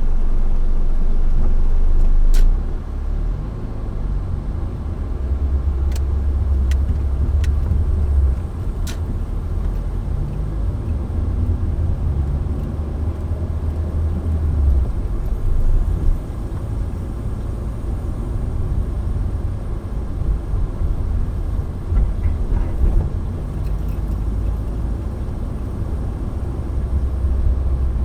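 Steady low road rumble of a moving car, engine and tyre noise heard from inside the cabin, with a few faint sharp clicks in the first nine seconds or so.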